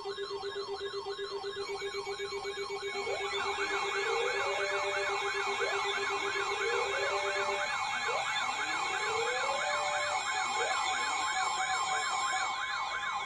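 Several emergency alert receivers sounding their alarms at once: a fast warbling siren-like tone over a steady high alert tone, with a second warbling alarm joining about three seconds in. A low steady tone stops about halfway, and short rising glides repeat every couple of seconds.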